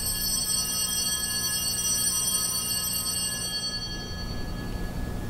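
Altar bell struck once and ringing out, fading over about four seconds, over a low steady hum. It marks the elevation of the consecrated host at Mass.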